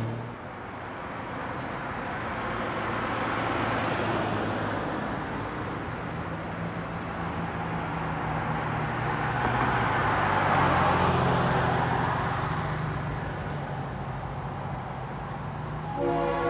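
Florida East Coast Railway diesel freight train passing, engines running low and steady under the rush of wheels on rail, which swells to its loudest about two-thirds of the way through. A horn blast starts right at the end.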